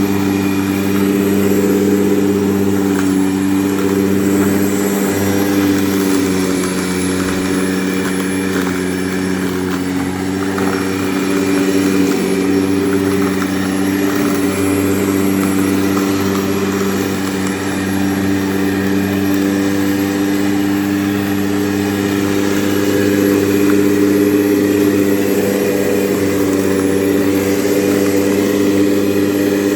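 Grunman corded electric lawn mower running steadily, its motor and spinning blade giving an even, loud hum with small dips in level now and then.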